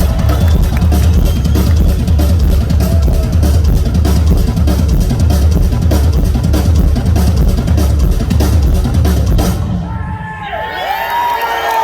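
Rock drum kit played live in a fast, dense solo, with a heavy rapid bass drum under snare and tom strokes, stopping abruptly about nine and a half seconds in. Crowd cheering and whistling follows near the end.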